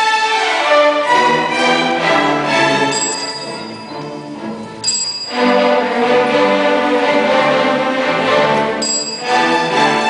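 Middle school string orchestra of violins, violas, cellos and basses playing. About five seconds in, a short high beep cuts in and the music breaks off into a different passage. It switches again at another beep near the end, like a remote control changing channels.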